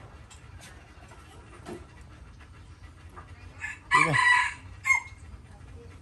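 A chicken gives one loud call about four seconds in: a short opening note, a longer middle part and a brief last note, over a faint steady background.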